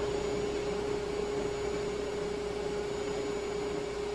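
Shop vacuum running steadily: a constant motor hum with one held tone over a hiss.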